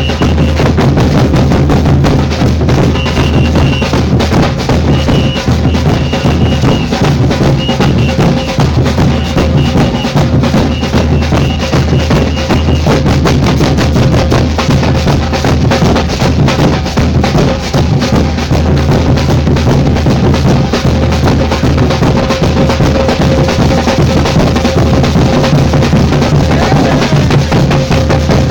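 Samba percussion group playing a fast, dense drum rhythm, with deep bass drums and crisp snare strokes. A short high tone comes and goes over it in the first half.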